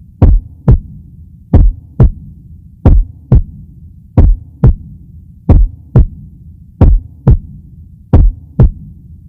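Heartbeat sound: a double thump, lub-dub, about every 1.3 seconds, over a steady low hum.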